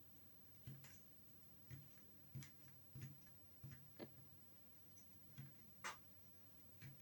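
Faint, irregular taps and clicks, about nine of them, as a star cookie cutter is pressed through rolled-out cookie dough onto the counter and lifted again.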